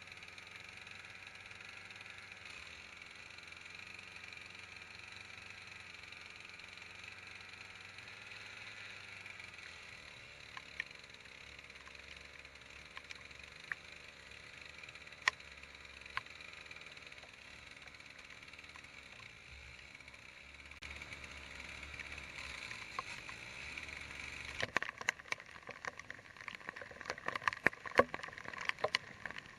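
Steady hiss of rain, with a few isolated sharp ticks midway; about 25 seconds in, it turns into a dense patter of sharp ticks as drops strike close by.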